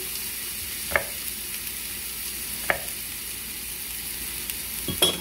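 Thin strips of beef round frying in oil in a nonstick skillet: a steady sizzle. Three sharp clicks cut through it, about a second in, near three seconds and at the very end.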